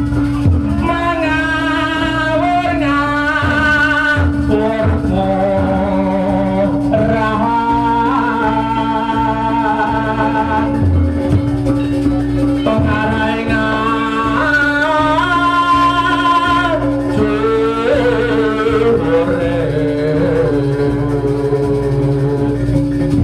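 Live East Javanese jaranan gamelan music: a woman sings a wavering vocal line in phrases over kendang drum strokes, with a steady held low tone underneath.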